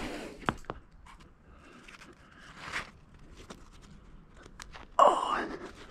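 A climber's hands and shoes scuffing and tapping on rock, with a few sharp clicks and breathing. About five seconds in, a loud gasped "oh".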